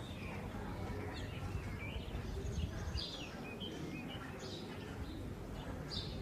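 Small birds chirping in short, scattered calls, over a steady low rumble of outdoor street ambience.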